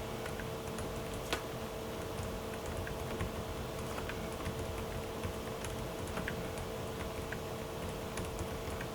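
Typing on a COX CSK105 low-noise mechanical keyboard with Outemu Peach V3 switches and silicone sound dampers: soft, muted, irregular key clicks over a faint steady hum.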